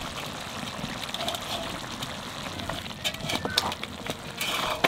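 Chicken sizzling in an aluminium cooking pot, then a metal spatula stirring it from about three seconds in, clicking and scraping against the pot.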